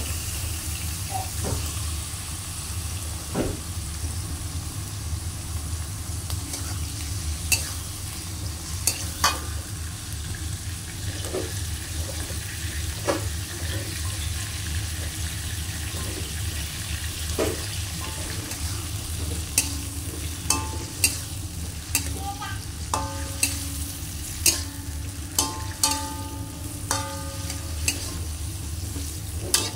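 Squid, garlic and shallots sizzling in oil in a metal wok while a metal spatula stirs them, scraping and clacking against the pan, with a steady low hum underneath. The clacks come more often in the second half, and several strikes leave the wok ringing briefly.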